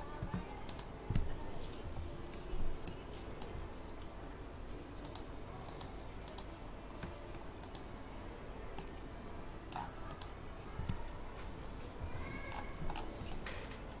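Scattered clicks from a computer mouse and keyboard, a few at a time, over a steady low hum.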